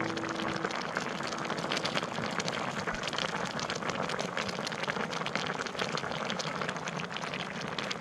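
A pot of seafood noodle soup boiling on a portable tabletop gas stove: a steady, dense bubbling crackle.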